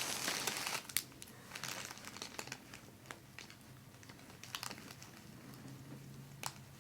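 Paper cover on a chiropractic table crinkling as the patient shifts on it: a dense rustle in the first second, then scattered soft crinkles and a few sharp ticks.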